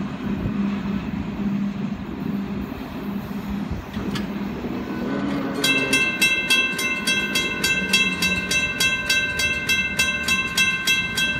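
Low rumble of a passing train, then about halfway in a railroad crossing warning bell starts ringing: a quick, even series of metallic dings that keeps going as the crossing gates rise.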